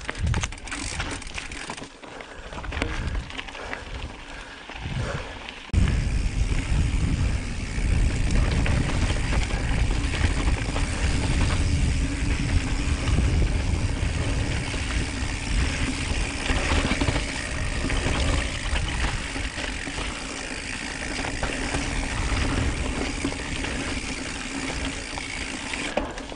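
Mountain bike ridden along rough dirt and rock singletrack, its tyres rolling and its chain and frame rattling over bumps. About six seconds in, a steady heavy rumble of wind buffeting the camera microphone sets in and stays to the end.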